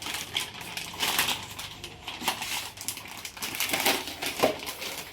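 Irregular rustling, crinkling and sharp clicks as the replacement Dell PowerEdge R730 system board is handled.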